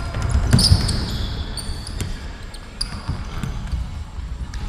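Indoor football match on a hard court: several dull thuds of the ball being kicked and bouncing, and brief sneaker squeaks on the floor, over a constant rumble of the hall.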